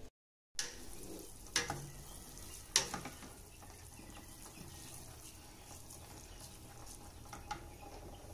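Rice noodles (pancit) being stirred in a stainless steel pot over heat: a faint, steady sizzle with a few sharp clicks of the spoon against the pot.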